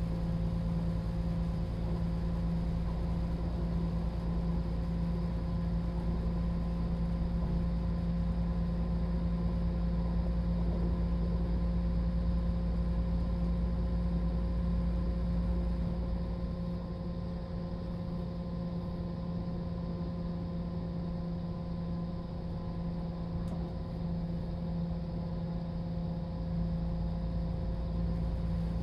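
Class 172 Turbostar diesel multiple unit running at speed, heard from inside the carriage: a steady underfloor diesel engine hum with wheel and track rumble. About halfway through the deep rumble eases and the sound drops a little, then it comes back up near the end.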